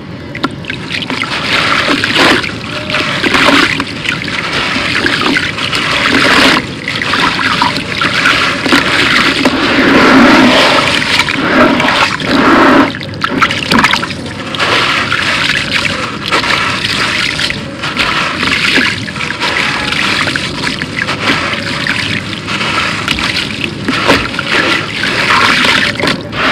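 Hands crushing a crumbly lump of dry concrete into shallow water in a plastic tub: continuous wet splashing and sloshing with gritty crumbling, broken by a few brief pauses.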